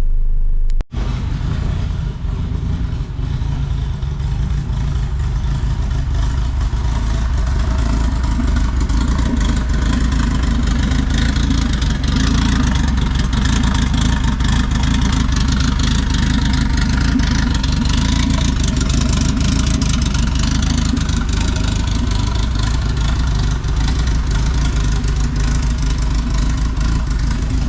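K-swapped Honda Civic hatchback's engine running steadily under way, a constant engine drone with a wide hiss of road and wind noise over it, starting after a cut about a second in.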